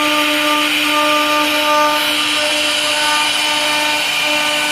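Two water-cooled spindles of a CNC router carving 3D relief into wood: a steady high-pitched whine over a constant hiss of cutting.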